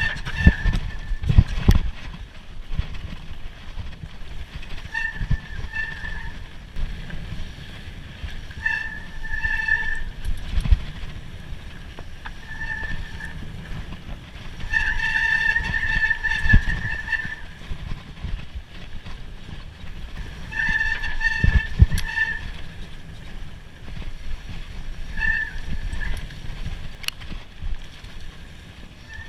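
Mountain-bike disc brakes squealing in repeated bursts of a second or two, each time at the same high ringing pitch, over a steady low rumble from the rough trail and wind, with a few sharp knocks from bumps.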